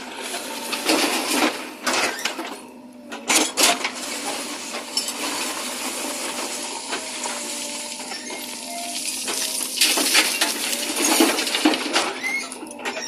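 JCB 3DX backhoe loader at work: its bucket clanking and scraping through soil in repeated bursts of metallic knocks, over the steady hum of the running engine.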